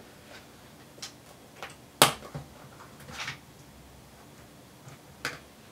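Small hand tools being handled while a screwdriver bit is changed: scattered sharp clicks, the loudest about two seconds in, and a short rattle about three seconds in.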